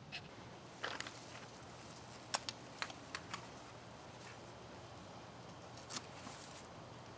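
Scattered short clicks and crackles from handling a potted ginger plant and its soil, a handful of them bunched around the second and third seconds and one more near the end, over a low steady hum.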